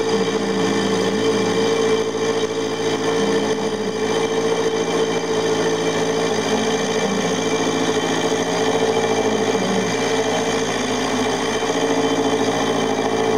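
Milling machine running steadily, its end mill taking a light 0.1 mm finishing cut in a metal locomotive frame plate: a constant mechanical hum with a strong steady tone.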